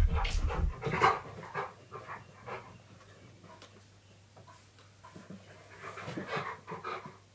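Husky-malamute dog panting in short irregular bursts, with heavy low thumps in the first second.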